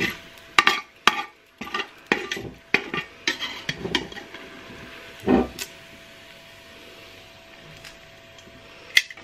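Metal utensil clinking and scraping against the stainless steel inner pot of an Instant Pot as bacon is lifted out of the hot fat: a quick run of clinks and knocks through the first five seconds or so, then quieter, with one more clink near the end.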